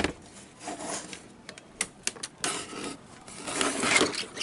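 Handling noise: scattered light clicks and taps, then close rubbing and scraping for about a second near the end as a hand brushes over the microphone.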